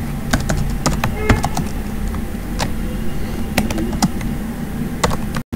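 Typing on a computer keyboard: irregular separate key clicks over a steady low hum. The sound drops out for an instant just before the end.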